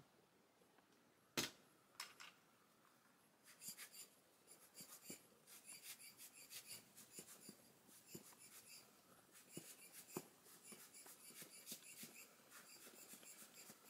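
Soft, rapid puffs of air from a hand-squeezed rubber blower bulb (an alcohol-ink blower tool), pushing wet liquid watercolor across paper, a couple to a few puffs a second. A sharp click comes about a second and a half in, before the puffing starts.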